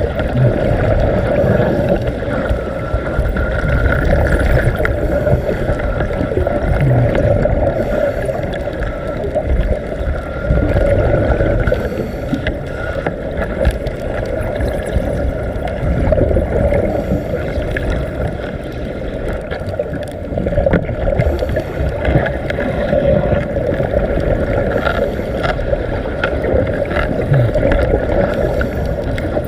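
Steady underwater rumble with gurgling water noise, and faint crackles here and there.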